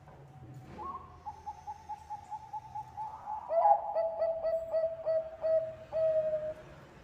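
Zebra dove (Bangkok perkutut) cooing: a short rising note, then a quick run of short coos, then a lower, louder string of rhythmic coos about three a second that stops shortly before the end.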